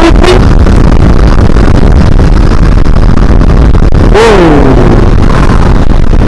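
Motorcycle riding at road speed: a steady rush of wind on the microphone over the running engine. About four seconds in, a short sound slides down in pitch.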